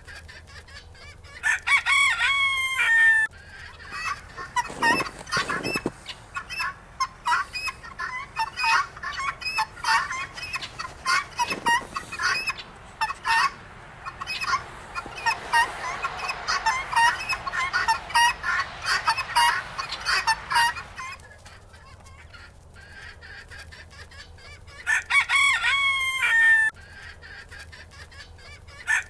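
A trio of guinea hens calling. Loud, harsh, repeated calls come about two seconds in and again near the end, and between them runs a long stretch of rapid, short chattering cries.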